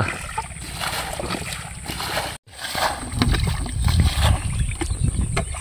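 Water being bailed by hand from a shallow pit with a plastic bucket: repeated scoops, sloshing and splashes as the water is thrown out. The sound cuts out for a moment about halfway through.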